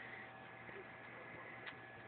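Quiet background: an even low hiss with a faint steady hum and one faint click near the end.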